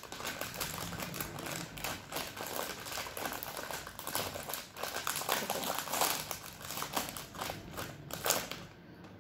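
Crinkling and crackling of a plastic snack bag being handled and pulled open by hand, stopping shortly before the end.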